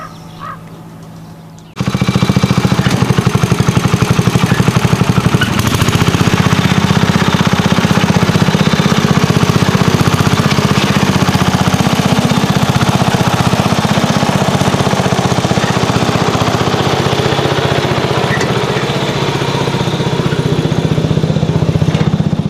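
Vintage Garden Mark garden tractor engine running steadily under load while it tows a trailer of log rounds. The engine has a fast, even firing beat and comes in abruptly about two seconds in.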